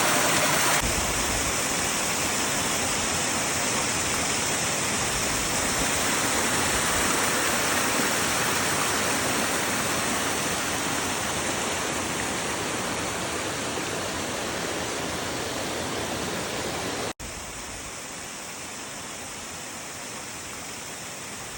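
A waterfall's steady rush of falling water. About 17 s in it breaks off for an instant and resumes noticeably quieter.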